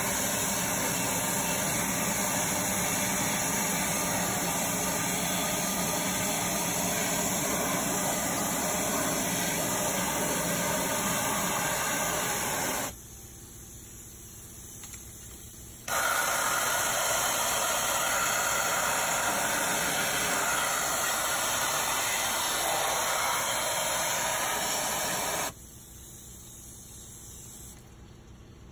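Power sprayer's cleaning wand blasting water over an engine's valley and wiring harness: a steady spraying hiss with a low hum underneath. It stops about 13 s in, starts again about 3 s later, and stops again near the end.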